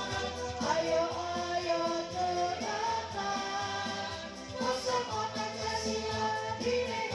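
A group singing together over music with a steady low bass beat.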